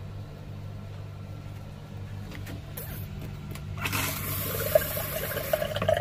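Water rushing in a travel trailer's bathroom plumbing for about two seconds, starting near the four-second mark, after a few light knocks, over a steady low hum.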